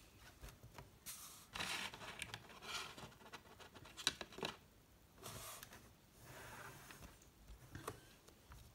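Faint handling noise of a cardboard Blu-ray slipcover and a plastic Blu-ray case on a table: scattered short rustles and scrapes with a few sharp clicks.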